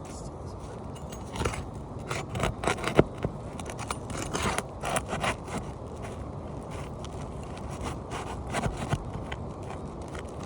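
Scraping and prying at asphalt roof shingles with irregular clicks and a sharp knock about three seconds in, as a stubborn overdriven roofing nail is worked at and does not yet come free.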